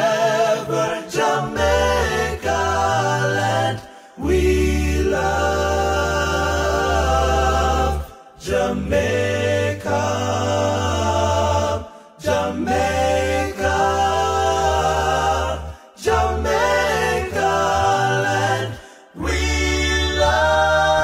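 A cappella choir singing slow, held phrases of about four seconds each, with a short breath pause between phrases.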